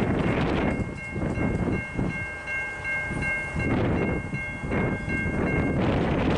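Distant locomotive air horn sounding a long, steady chord that cuts off near the end, with heavy wind buffeting the microphone.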